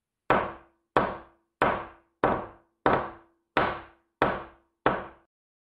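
Eight evenly spaced hammer knocks, about one every two-thirds of a second, each sharp and dying away quickly with a brief ringing note.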